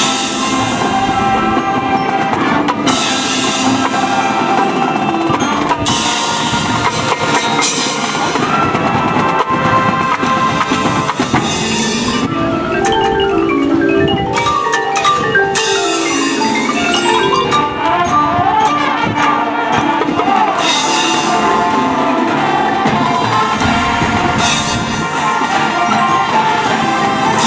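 Marching band show music led by front-ensemble mallet percussion (marimba, xylophone, glockenspiel) playing fast rising and falling runs, with several loud crashes.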